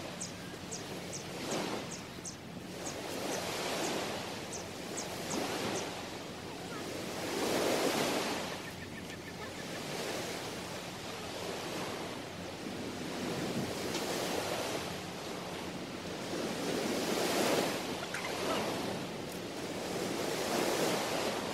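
Small waves breaking and washing up onto a sandy shore, the wash swelling and fading every few seconds, with light wind on the microphone. A run of short high chirps repeats over the first five seconds or so.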